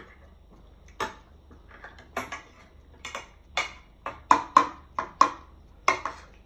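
Metal spoon clinking and scraping against a bowl while scooping rice: about a dozen short, sharp strokes starting about a second in, loudest around the middle.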